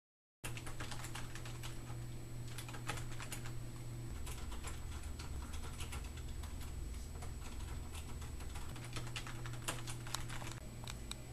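Many quick, irregular light clicks, like keys being typed, over a steady low hum; the sound starts abruptly about half a second in.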